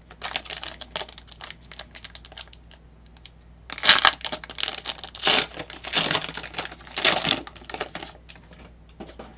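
Trading-card pack wrapper being torn open and crinkled by hand: a run of irregular crackles and rustles, loudest from about four to seven seconds in.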